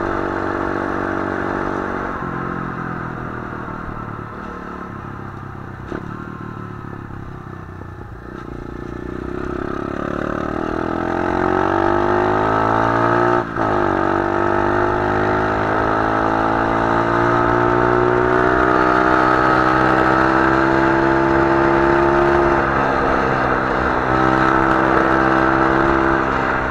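125cc pit bike engine running under way. Its revs drop and it runs quieter for several seconds, then it accelerates with a rising note, with a brief break about halfway through, and climbs slowly on before easing off near the end.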